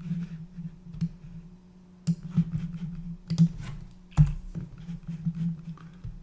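Computer keyboard keystrokes and clicks, irregular and spaced out, as a spreadsheet formula is typed in, over a low steady hum.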